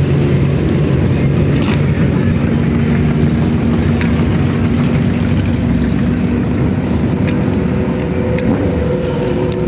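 Many motorcycle engines running together in slow street traffic: a loud, steady low rumble with a few held engine tones.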